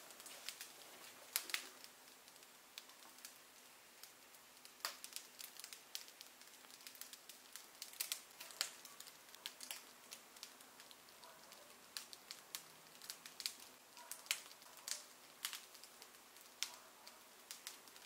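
Crust of a freshly baked rye levain pain de campagne crackling as the loaf cools: faint, irregular sharp ticks and pops, sometimes several in a second.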